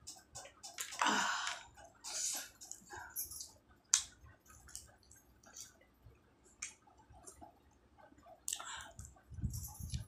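Close-up chewing and mouth sounds of a person eating Maggi noodles and samosa, with many small scattered clicks, a louder noisy sound about a second in and a single sharp click near four seconds.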